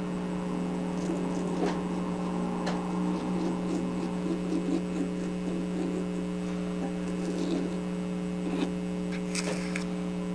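Steady electrical hum, with a few faint scattered taps and rustles from small craft bricks being handled and pressed into place.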